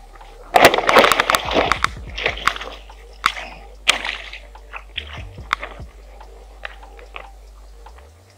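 Clicking, rattling and crinkling of fishing gear being handled in a small boat: a dense burst from about half a second to two seconds in, then scattered sharp clicks that thin out toward the end.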